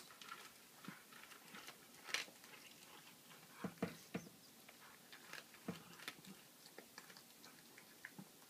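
Domestic cat chewing a baby rabbit, crunching through its bones: faint, irregular crunches and clicks, the loudest about two seconds in and again around four seconds in.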